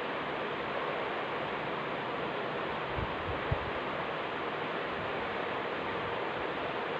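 A steady, even hiss of background noise, with two soft low knocks about three seconds in.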